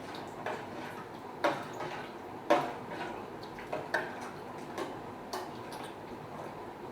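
A spoon clinking against a cooking pot while the mixture is stirred: short, separate clinks at an irregular pace, roughly one or two a second.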